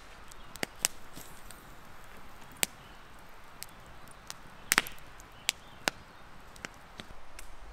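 Wood campfire crackling: sharp, irregular pops about once a second over a faint hiss, with a louder close pair of pops about two-thirds of the way in.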